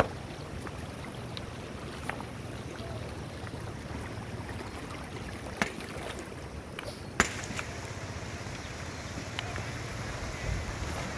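Shallow river rushing steadily over rocks, with a few sharp knocks, the loudest about seven seconds in.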